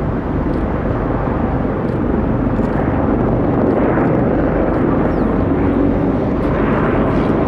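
A formation of large helicopters flying past, a steady rotor and engine rumble that grows a little louder about halfway through.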